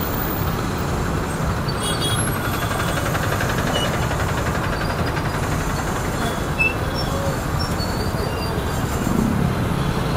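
Motorcycle riding through city traffic: a steady rush of engine, wind and road noise, with other vehicles around.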